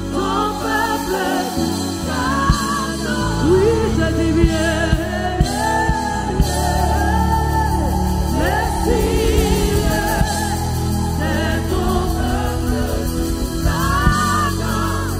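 Christian worship song: singing voices over instrumental backing with a steady low bass.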